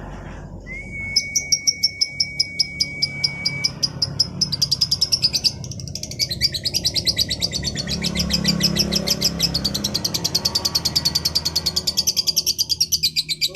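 Female lovebird giving its long, rapid chattering song: a fast unbroken string of high chirps that grows quicker after a few seconds. A single high whistle is held for about three seconds near the start.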